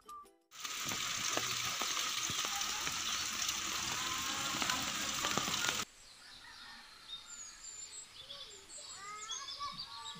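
A loud, steady hiss with scattered crackles that cuts off abruptly about six seconds in. Then birds chirp and twitter over quiet outdoor background.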